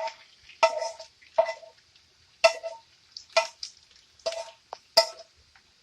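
A metal utensil knocking against a dish or pan about seven times, roughly once a second. Each knock is sharp and rings briefly at the same pitch.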